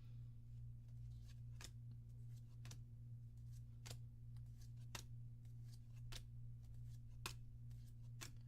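Force of Will trading cards from a freshly opened booster pack being flipped through by hand, a faint light snap roughly once a second as each card is moved, over a steady low hum.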